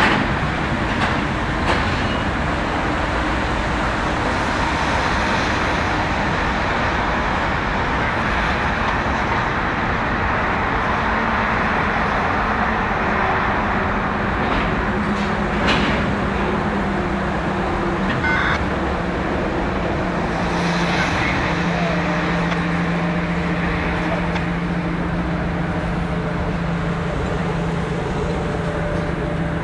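Freight cars carrying dirt containers roll slowly along the yard track, a steady rumble with the low drone of the train's EMD diesel locomotives under it. A few knocks come near the start and about 16 seconds in, and a brief squeal comes about 18 seconds in.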